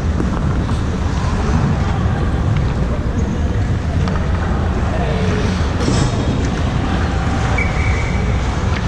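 Ice rink ambience picked up by a camera microphone: a steady low rumble with distant players' voices. A short, flat, high whistle tone sounds about eight seconds in.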